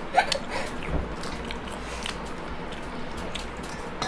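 Crisp pani puri shells cracking as they are punctured and bitten, in scattered short crunches.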